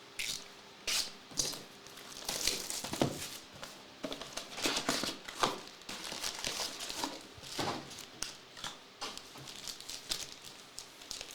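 Trading card pack wrappers being torn open and crinkled by hand, a run of irregular crackling and tearing sounds.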